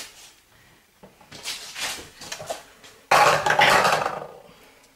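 Dishes and kitchen utensils clattering and knocking in a kitchen sink as washing up begins, with the loudest clatter about three seconds in.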